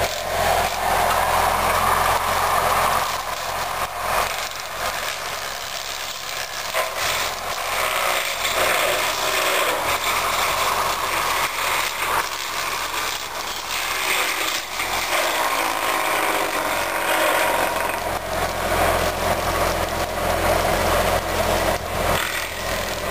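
Tree-trimming machine at work: its engine running steadily under load while its boom-mounted saw cuts through branches, with repeated sharp cracks of wood breaking.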